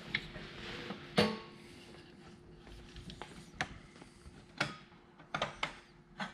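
Scattered metallic clicks and knocks from a motorcycle's aftermarket slip-on exhaust and link pipe being worked into place by hand, the loudest about a second in, over a faint steady hum.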